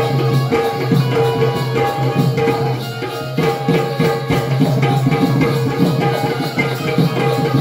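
Instrumental folk music from a kalapathak troupe: quick hand-drum beats and jingling percussion over a steady held drone.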